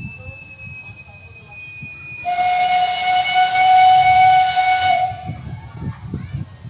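Steam locomotive whistle: a faint thin high tone, then about two seconds in a loud, hissing, several-toned whistle blast held for about three seconds before cutting off, over a low rumble.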